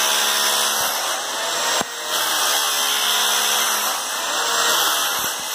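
Corded electric demolition hammer with a chisel bit running steadily as it chips glued-down wood flooring off the subfloor, with a brief break just under two seconds in.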